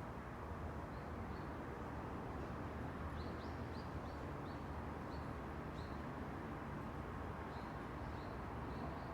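Steady low rush of wind and distant road traffic, with a small bird giving short high chirps, about one or two a second, from about a second in.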